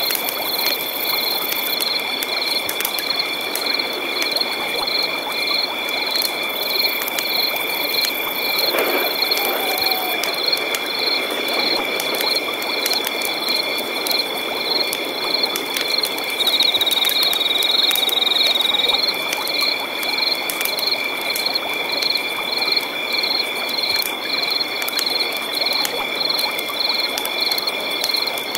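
Night-time chorus of frogs croaking, over steady high-pitched insect trilling with a pulsing chirp about twice a second. A louder insect buzz comes in for a couple of seconds about two-thirds of the way through.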